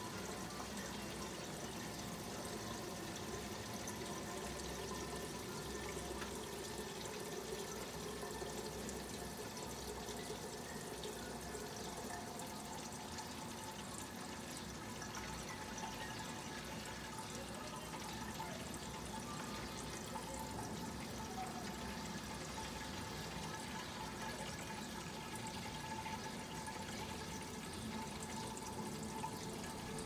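Steady running, pouring water from an aquarium gravel vacuum drawing water and sand out of a reef tank's sand bed, with a faint steady hum underneath.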